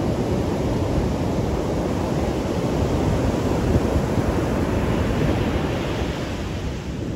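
Heavy ocean surf breaking and washing up the beach, a steady rush of noise, with wind buffeting the microphone.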